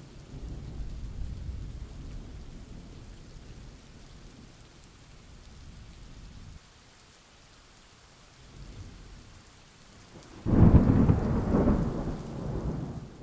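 Rain falling with low rolling thunder that fades away. About ten seconds in, a sudden loud thunderclap rumbles on and slowly dies down.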